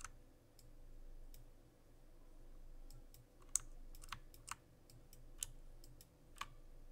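Faint, irregular clicks of a computer mouse and keyboard keys, about a dozen scattered over the stretch, the sharper ones coming a little past the middle.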